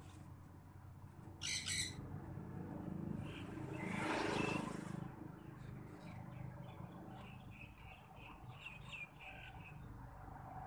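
Small birds chirping, a short high trill about a second and a half in and a run of brief chirps in the second half. Around four seconds in, a louder rushing noise swells and fades away.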